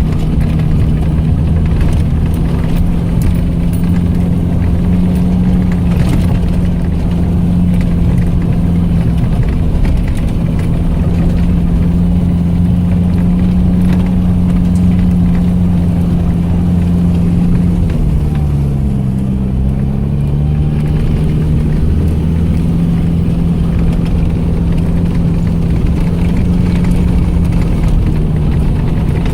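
ARO 4x4 off-roader's engine running steadily while driving. About two-thirds of the way through, the engine note dips in pitch briefly and then comes back up.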